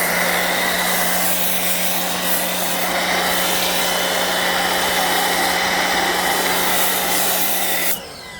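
Sun Joe SPX3000 electric pressure washer running, a steady motor hum under the hiss of its spray, cutting off suddenly near the end when the trigger is let go and the washer shuts itself off.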